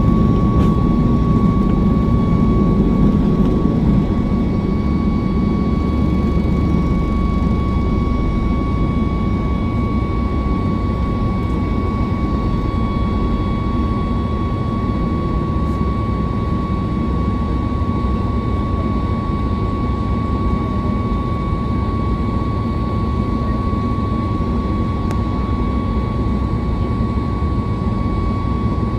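Jet airliner's engines heard from inside the passenger cabin: a steady deep roar with a steady high whine over it, easing a little about four seconds in.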